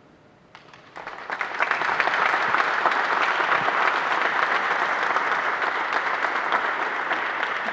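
Audience applauding. It starts about a second in, swells quickly to a steady level and eases off slightly near the end.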